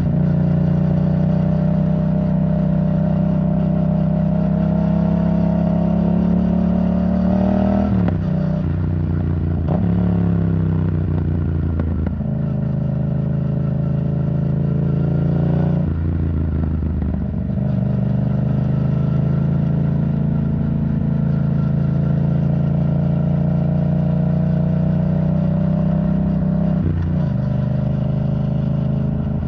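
Yamaha MT-07's parallel-twin engine running through an Arrow Thunder titanium exhaust while riding. The steady engine note dips sharply and picks up again about five times, as with gear changes or throttle roll-offs.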